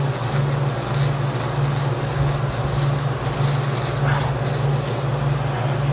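A loud, evenly pulsing low machine hum, with plastic bags crinkling as a gloved hand handles bagged burger buns.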